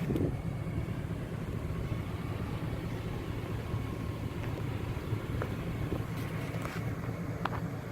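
Vehicle engine running steadily, a low even rumble, with a few faint clicks near the end.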